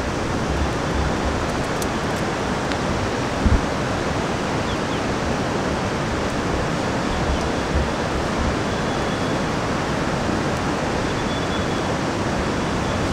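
A steady rushing hiss on an open cliffside, with occasional low rumbles of wind buffeting the microphone and a brief thump about three and a half seconds in.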